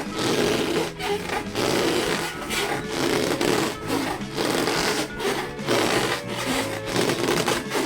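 Rubber balloons being squeezed and rubbed in quick repeated strokes, a dense rubbery rubbing and squeaking broken by short gaps about every half second to a second.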